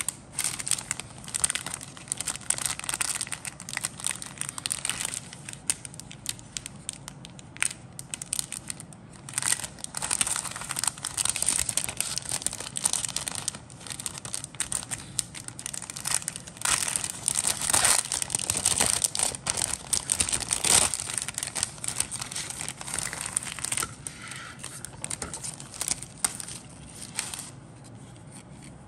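Thin clear plastic bags crinkling and rustling as they are handled around plastic model-kit sprues, in irregular bursts that die away near the end.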